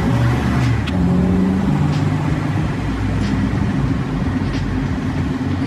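Volvo Amazon's four-cylinder engine pulling hard on a brisk drive, its pitch climbing and dropping several times as it revs up and shifts.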